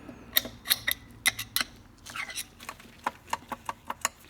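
Light metal clicks and clinks, about a dozen irregular taps, as metal transmission parts and hand tools are handled.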